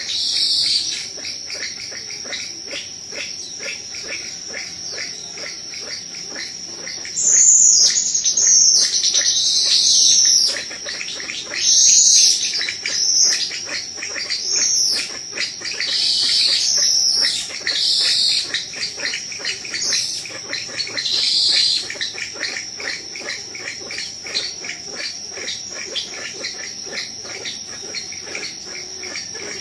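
Forest insects keep up a steady high-pitched drone with a fast pulsing chirr. Over it come bursts of high bird calls from about seven seconds in until about twenty-two seconds, loudest in the first part of that stretch.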